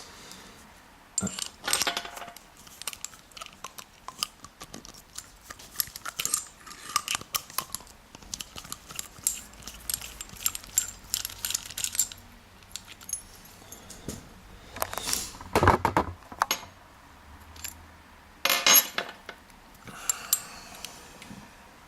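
Small metal parts and tools handling a heavy padlock during disassembly: scattered metallic clicks, clinks and rattles, with a few louder clanks about fifteen and nineteen seconds in.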